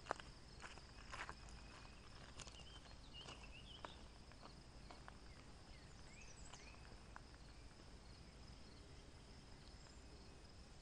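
Near silence: a faint steady insect trill, with a few faint footsteps in the first couple of seconds and a few short chirps.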